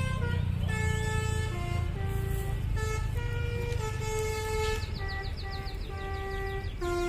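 Indonesian bus Basuri (telolet) musical horn playing a tune of held notes that change pitch every half second or so, over a low engine rumble that eases after the first second or two.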